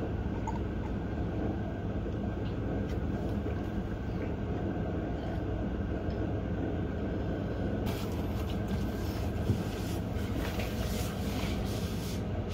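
Steady low background rumble of room noise, with a few faint knocks and rustles from about eight seconds in.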